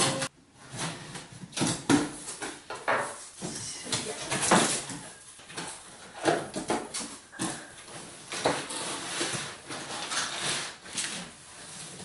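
Cardboard box being unpacked by hand: packing tape slit and torn with a loud rip at the start, then irregular scraping of the cardboard flaps and rustling of the packing material inside.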